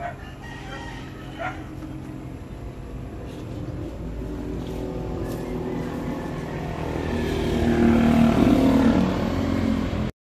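Chickens call twice in the first two seconds, then a passing motor vehicle's engine grows steadily louder, loudest about eight seconds in. The sound cuts off abruptly near the end.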